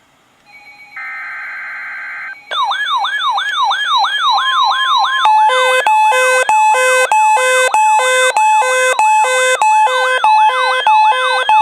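NOAA Weather Radio alert for a severe thunderstorm warning: a one-second burst of screechy digital header data, then an electronic siren-like alert tone that sweeps up and down about three times a second before switching to a faster stepping pattern of alternating tones.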